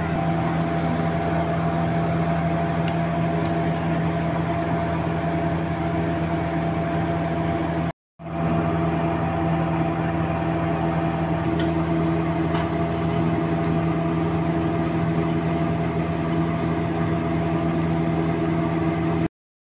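Steady mechanical hum of a running motor, with several fixed tones. It cuts out for a moment about eight seconds in and stops just before the end.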